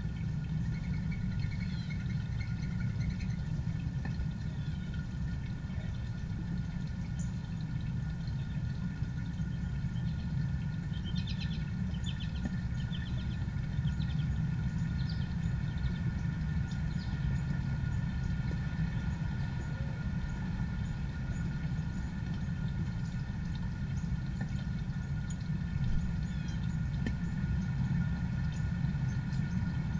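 A steady low rumble with a faint steady hum above it, and small birds chirping now and then, with a quick run of chirps about eleven seconds in.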